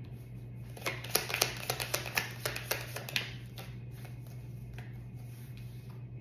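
A deck of oracle cards shuffled by hand: a quick run of card flicks and snaps starting about a second in and lasting about two seconds, then a few scattered ones.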